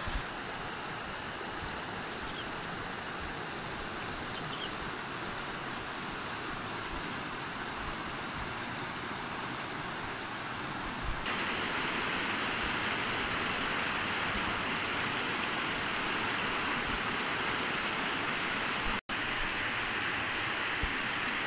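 Mountain stream rushing over rocks: a steady hiss of running water that gets louder about halfway through and cuts out for an instant near the end.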